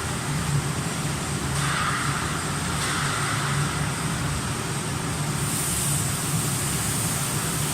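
Vertical flat glass washing machine running: a steady low hum with a constant high hiss. The high hiss gets louder about halfway through.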